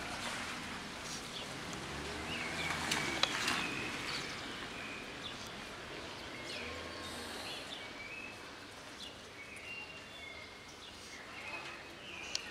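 Outdoor ambience with birds chirping now and then, and soft clicks of a cat crunching dry kibble, busiest a few seconds in.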